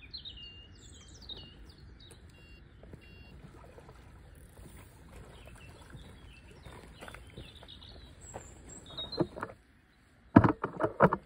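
Small birds singing and chirping. Near the end comes a quick run of loud knocks and rustles, handling noise as the phone that is filming is picked up and moved.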